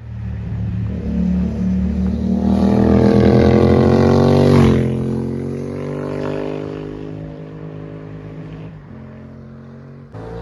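Yamaha MT-07's parallel-twin engine, breathing through an aftermarket Arrow exhaust, accelerating past with its pitch climbing to a peak about four and a half seconds in. The pitch then drops suddenly, and the sound fades slowly as the bike pulls away.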